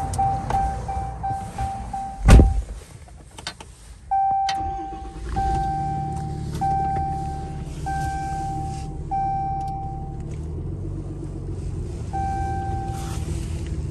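Rapid dashboard chimes from a Ram pickup stop when a door slams shut about two seconds in. About four seconds in the truck's engine starts and runs at a low idle, while a longer warning chime repeats about once a second, six times, and once more near the end.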